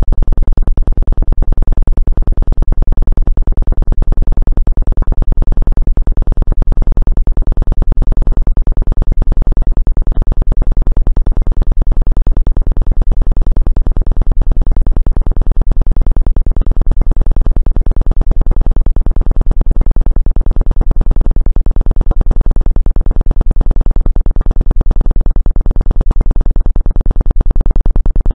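Loud, continuous synthesized tone of the kind played for Rife frequency therapy: a low buzzing pulse wave, steady in pitch and unchanging throughout.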